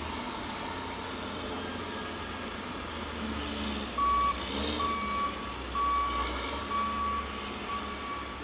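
Heavy equipment at a mulching yard runs with a steady low rumble. About four seconds in, a backup alarm starts beeping at one steady pitch, about once a second.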